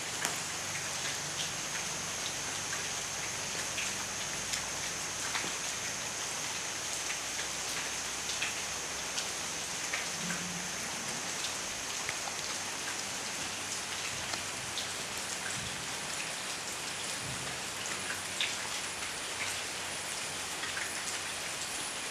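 Steady rain falling, with many individual drops ticking sharply close by.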